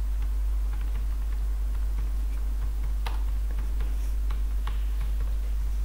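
Computer keyboard keys clicking irregularly as a short heading is typed, mostly through the middle, over a steady low electrical hum.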